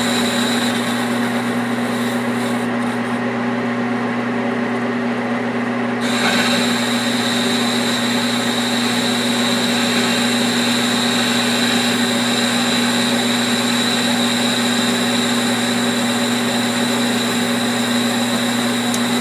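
Machine tool running steadily while it cuts away the rolled-over steel of a wheel hub's spindle, with a constant hum and a high whine. The high-pitched cutting noise picks up about six seconds in.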